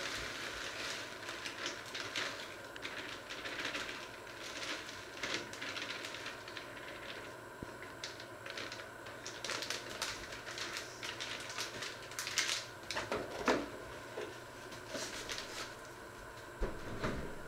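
Kitchen handling sounds: crinkling of a food package and irregular small clicks and taps while food is tipped into a pan on the hob, with a couple of louder knocks near the end.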